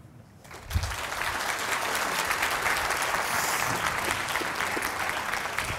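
Audience applauding, starting just under a second in and keeping up steadily.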